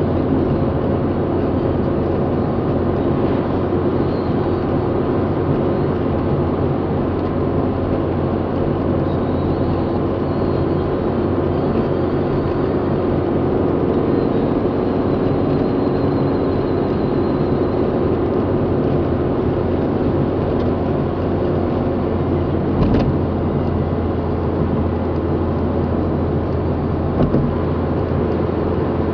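Steady road and engine noise inside a car cruising on a motorway: tyre rumble on the asphalt over a low hum. A short knock about 23 seconds in and another about four seconds later.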